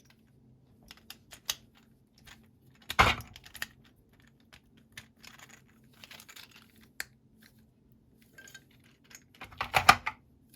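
Plastic bit-holder pins being pulled out of and snapped into a plastic tool bit case: scattered light clicks and clatter, with a louder burst of rattling about three seconds in and another near the end.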